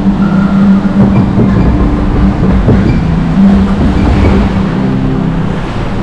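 Log flume boat floating along its water trough inside a tunnel: a loud, steady rumble of rushing water and the boat, with a few held low tones over it that change pitch every second or so.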